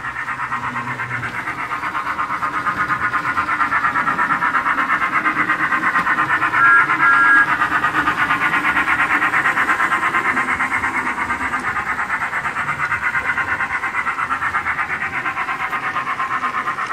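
Built-in sound unit of an HO-scale DC Thomas model locomotive playing simulated steam-engine chuffing in a fast, steady rhythm. Twice about seven seconds in, a short whistle toot sounds over it.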